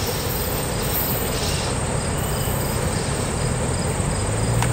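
Insects chirping in a steady high-pitched pulse, about three chirps a second, over a steady low rumble.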